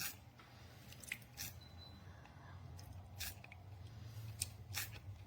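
Faint handling noises: a few soft, irregularly spaced clicks and taps over a low steady hum.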